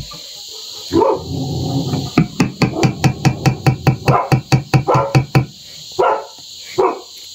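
A dog barking: a short call, then a fast, even run of barks, about five or six a second, for about three seconds, and two more single barks near the end.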